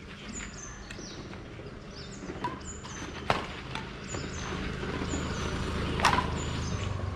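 Badminton rally: several sharp racket hits on the shuttlecock at uneven intervals, the loudest about six seconds in.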